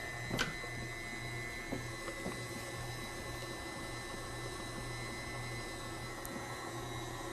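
Steady hum of a small motor running, with a high whine over it and a single click about half a second in.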